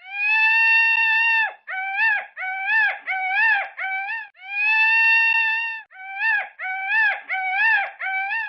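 An animal call repeating in an identical loop: a long, steady, high whine of about a second and a half, then a run of short rising-and-falling cries, then the long whine again.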